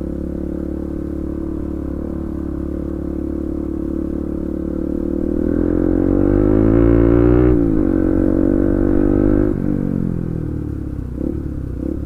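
Bajaj Pulsar NS200's single-cylinder engine running loud through an exhaust with its dB killer removed. It holds a steady pitch, then revs up about halfway through with a quick drop in pitch at a gear change, and falls away as the throttle closes near the end.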